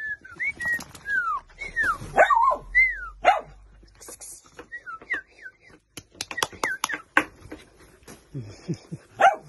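Puppy whining and yipping in short, high, mostly falling whimpers, with scattered clicks and rustling from play and handling.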